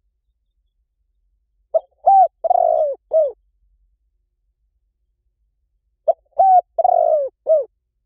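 Spotted dove cooing: two calls about four seconds apart, each a phrase of four notes with a longer, drawn-out third note.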